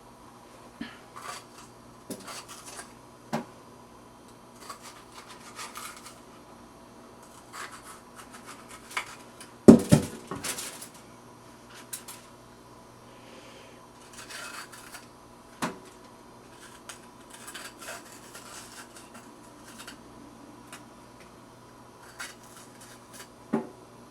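Kitchen knife working on bell peppers on a cutting board: irregular light knocks of the blade on the board with scraping and rubbing in between, the loudest knock about ten seconds in.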